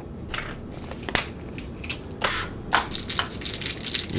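Crinkly plastic wrapper of a mini figure being handled and torn open by hand: irregular crackling and rustling, with a sharp click about a second in.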